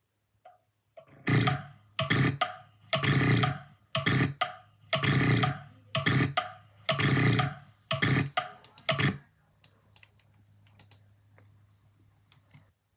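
A person's voice making a run of about a dozen loud, rough throat bursts in quick succession, some in pairs, over about eight seconds, followed by a few faint clicks.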